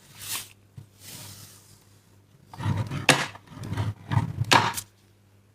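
Handling noises: a brief rustle at the start, then a couple of seconds of loud, irregular rustling and knocking, which stops shortly before the end.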